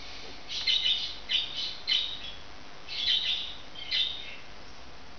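Budgerigar chirping: short high calls in quick clusters, with a pause in the middle and another near the end.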